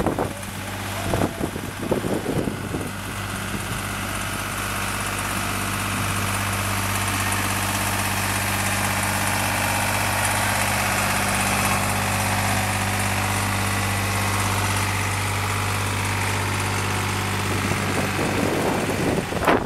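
Farm tractor engine running at a slow, even speed as the tractor pulls a hay wagon past, a steady low hum that grows a little louder as it draws level. Brief voices come near the start and near the end.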